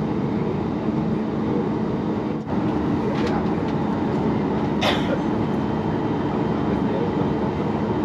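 Steady cabin noise inside a Boeing 737 MAX as it taxis, its CFM LEAP-1B engines running with a low steady hum. A brief sharp click about five seconds in.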